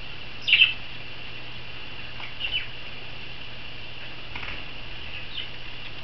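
Pet budgerigars and a lovebird giving short, high chirps, the loudest about half a second in and a few more scattered through, while wings flutter at a water bath.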